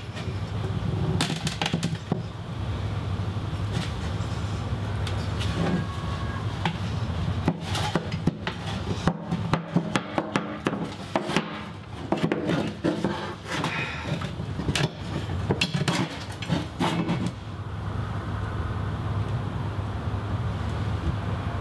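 Poplar shield handle knocking and rubbing against the wooden shield and its boss as it is pressed into place and test-fitted, giving scattered clicks and knocks that stop about 17 seconds in. A steady low hum sits under it throughout.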